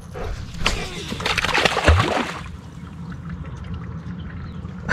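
A dog splashing and sloshing through shallow river water, loudest over the first two seconds or so with a low thump about two seconds in, then fading to a softer wash of moving water.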